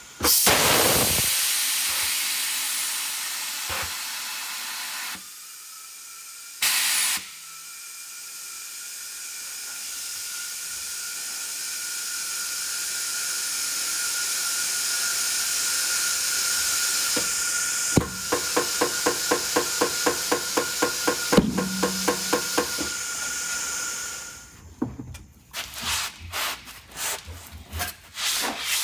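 Compressed air filling a large 35-inch mud-terrain tire on a tire changer: a sudden loud blast of air that tails off over a few seconds, a short burst, then a steady hiss with a thin whistle that slowly grows louder. Regular clicking pulses about three a second join it in its last few seconds before the air cuts off, followed by knocks as the tire is handled.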